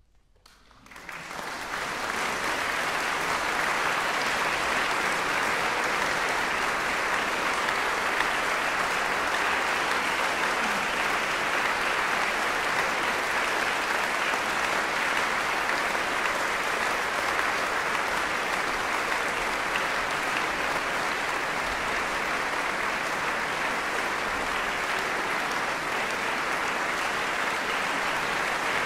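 Audience applauding, rising quickly about a second in and then holding steady.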